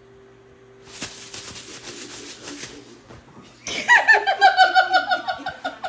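High-pitched laughter in rapid, pulsing bursts, starting about two-thirds of the way in, after a stretch of rustling hiss.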